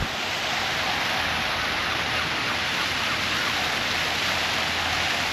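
Fountain jets splashing, a steady rush of falling water.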